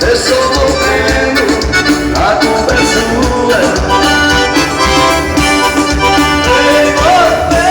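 Live band music led by an accordion melody over a steady beat.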